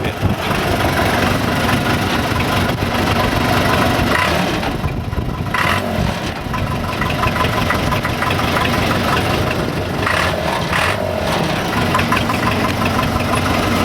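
Case 580C backhoe loader's four-cylinder diesel engine running steadily after starting up, with a sound the operator calls sweet.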